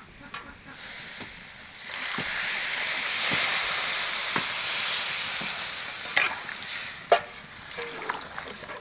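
Water poured into a hot kadai of spiced potatoes frying in oil, hissing and sizzling loudly as it hits the oil and dying down after about six seconds. Two sharp knocks of the spatula against the pan near the end.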